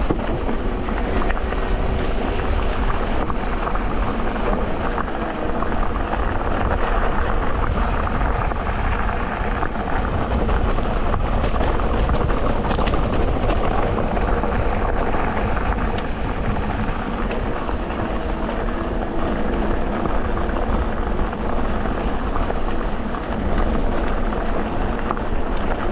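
Electric mountain bike ridden along a dirt trail: a steady, unbroken rumble of tyres over the ground, with small rattles and knocks from the bike throughout.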